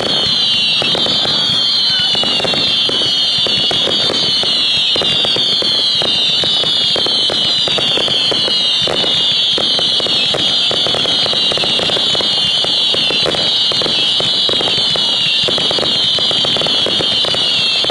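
Fireworks finale barrage: continuous bangs and crackling under many overlapping shrill whistles, each falling in pitch.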